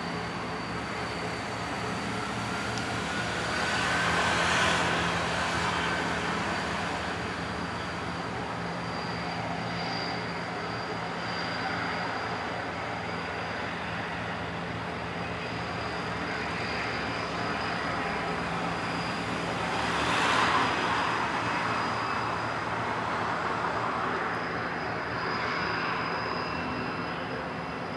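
Outdoor traffic ambience: a steady low engine hum with a thin high whine over it, and a vehicle passing by twice, about four seconds in and again around twenty seconds in.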